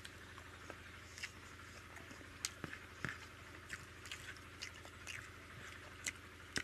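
Faint eating sounds: irregular soft mouth clicks and smacks of chewing rice and dal, with the fingers mixing food on the plate.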